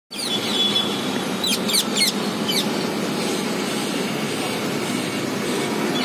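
Rose-ringed parakeets giving several short, shrill calls that slide down in pitch, clustered in the first half, over a steady rumble of road traffic.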